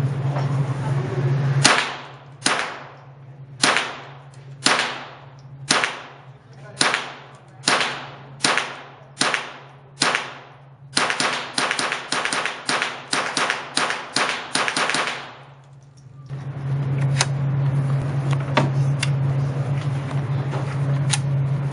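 Smith & Wesson M&P 15-22 semi-automatic .22 LR rifle firing, each crack ringing briefly in an indoor range. About ten shots come roughly a second apart, then a quicker run of about a dozen at two or three a second. A steady low hum comes before and after the string, with a few fainter shots near the end.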